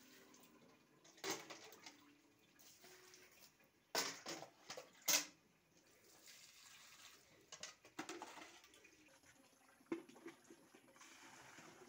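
Water pouring from a plastic watering can onto potted plants, coming in short spells with a few sharper splashes, the loudest about four to five seconds in.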